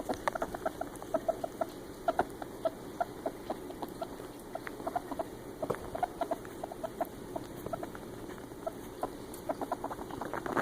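A ferret dooking: short, soft clucks in quick, irregular runs of a few a second.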